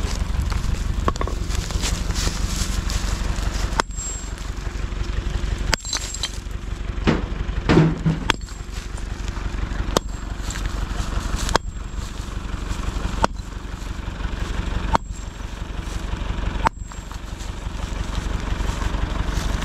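Sledgehammer striking stone boulders to split them: a series of sharp blows about every second and a half to two seconds. A steady engine rumble runs underneath.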